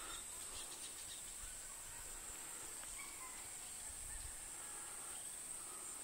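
Steady high-pitched drone of insects with a few faint, short bird chirps, and a brief low rumble about four seconds in.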